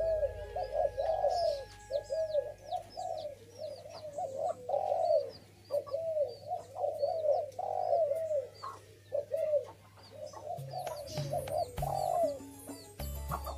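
Spotted doves (tekukur) cooing in a continuous run of short arched coos, with thin high chirps of small birds above them. Faint background music is heard near the start and again near the end.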